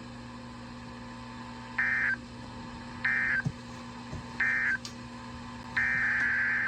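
Emergency Alert System SAME data bursts on a NOAA Weather Radio broadcast: three short, screechy two-tone digital bursts about a second apart, the end-of-message code closing one warning, then a longer burst near the end, the header of the next alert. A low steady hum lies under it.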